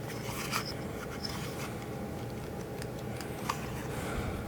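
Small hard plastic toy parts being handled and worked together: a few faint light clicks and rubbing scrapes over a steady low hum.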